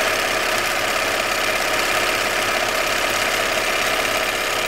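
Bernina 930 electronic sewing machine running steadily at high speed, sewing a decorative embroidery stitch: a fast, even mechanical chatter of the needle and feed.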